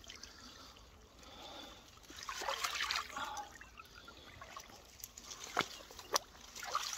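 Water trickling and splashing with the rustle of wet weed and twigs as someone wades through a weedy, silty shallow and moves branches by hand. Two sharp clicks come near the end.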